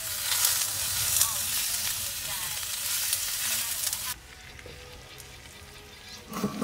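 Meat sizzling as it fries in a cast-iron skillet, turned now and then. The sizzle stops abruptly about four seconds in, and a short knock comes near the end.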